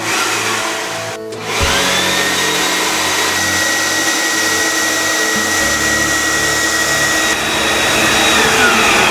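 Bee vacuum running with a steady motor whine as it sucks live honeybees off the comb through its hose; the motor spins up about a second and a half in and winds down near the end.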